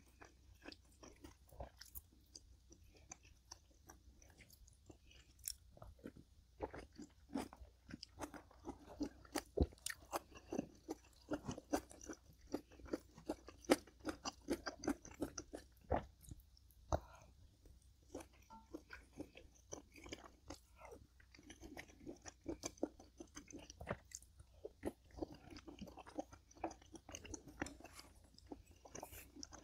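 A person chewing and crunching food close to the microphone: a dense, irregular run of short crunching clicks, busiest in the middle, over a faint steady low hum.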